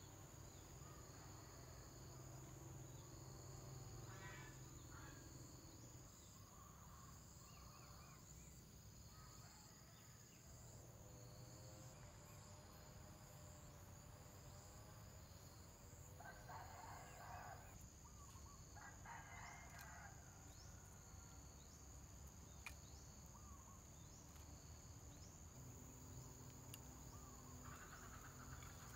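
Quiet outdoor background of insects trilling steadily at a high pitch, with two calls of about a second each, a couple of seconds apart, near the middle.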